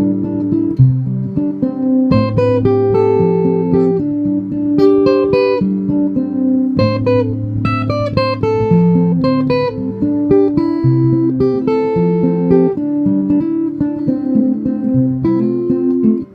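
Music: acoustic guitar playing an instrumental passage of a song, picked notes over a bass line that changes every couple of seconds, with no singing.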